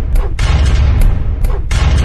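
Booming cinematic impact sound effects with falling whooshes, about twice, over dramatic music, accompanying an animated subscribe graphic.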